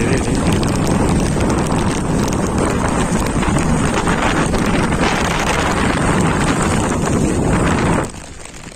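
Strong wind buffeting the microphone on an open fishing boat in a rainstorm at sea: a dense rushing noise with rapid irregular tapping of rain and spray. It drops off sharply near the end.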